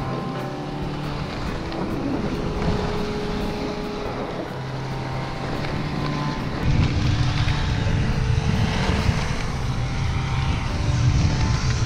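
Skis scraping over snow while skiing downhill, with wind rushing over the action-camera microphone; the rush grows louder about seven seconds in as speed picks up.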